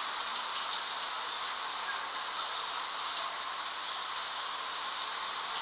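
Steady hiss of background noise, even throughout, with no bird song standing out.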